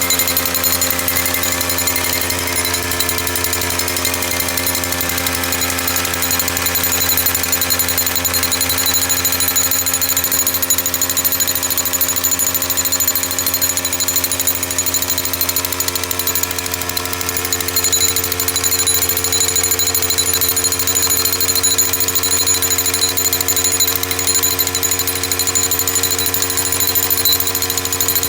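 Gas-powered jackhammer running without a break, pounding an 8-foot grounding rod down into the soil.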